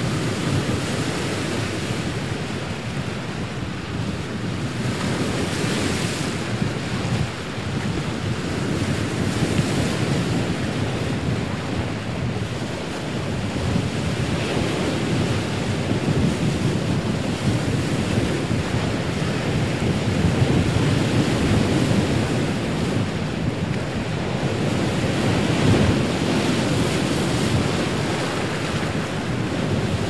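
Heavy ocean surf: waves breaking and washing in a continuous wash of noise that swells and eases every few seconds.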